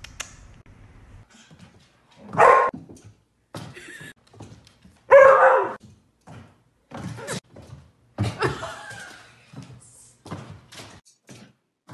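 A dog barking several times, the two loudest barks about two and a half seconds apart, with weaker barks and short thumps and clicks between them.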